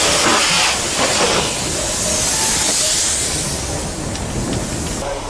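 Prussian P8 steam locomotive hissing loudly as steam blows out around its cylinders while it moves at walking pace. The hiss eases slightly near the end.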